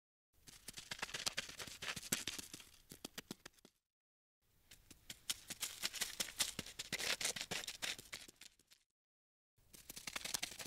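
Insect-scuttling sound effect for ladybugs crawling: rapid dry clicking and scratching in three runs of a few seconds each, with dead silence between them.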